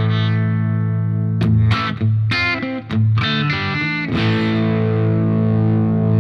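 Electric guitar played through a Diezel Schmidt amp's second channel with the guitar's volume knob turned down, giving an overdriven tone: a held chord, a few quick picked notes and strums about a second and a half in, then another chord left ringing.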